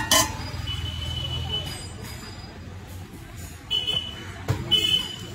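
A steel lid clanks down onto a frying pan twice in quick succession. A few short, high-pitched beeps and a couple of sharp knocks follow later, over a steady low hum.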